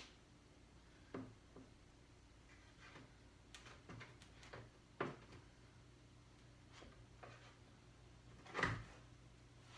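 Faint scattered clicks and knocks of a 27-inch iMac's screen panel being handled and set back onto the housing. There is a louder thump near the end.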